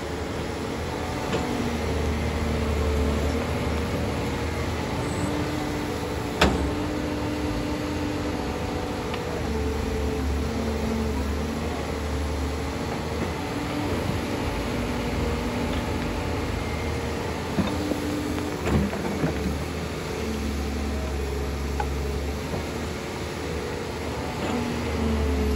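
Doosan excavator's diesel engine running under load, its pitch rising and falling as the hydraulics work. A sharp clank comes about a quarter of the way in, and a few smaller knocks come about two-thirds through.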